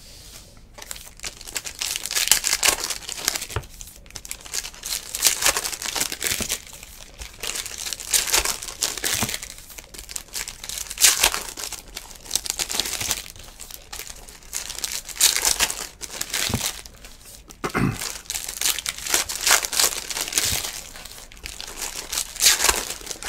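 Foil wrappers of 2019 Panini Legacy football card packs being torn open and crinkled by hand, in irregular bursts of crackling.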